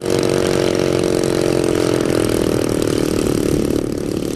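Engine of a radio-controlled aerobatic model airplane running at high power in flight, its pitch easing slightly lower in the second half.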